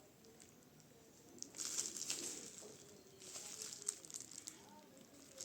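Packaging being handled, rustling and crinkling in two spells that start about one and a half seconds in.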